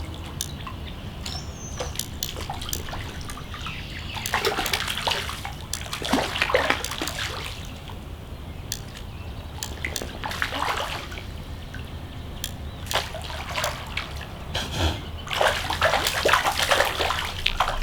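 Creek water splashing and sloshing in irregular bursts as a hooked trout thrashes at the surface while being played in close.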